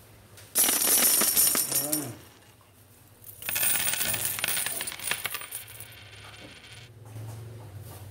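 A plastic bag of coconut milk crinkling and rustling as it is squeezed and emptied into a steel pot, in two bursts of about a second and a half each.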